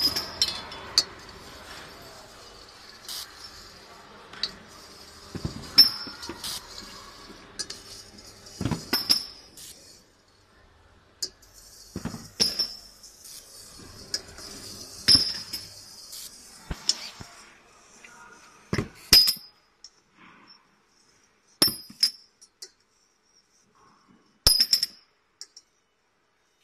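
Metal workpieces on a fiber laser marking conveyor line clinking, short sharp clinks with a bright ring, irregular at first and later one every two to three seconds. A faint steady machine hum runs under the first part and stops about sixteen seconds in.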